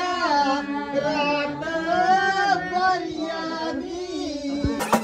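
A song with a solo voice singing long, gliding held notes. Just before the end it cuts abruptly to fast drumming.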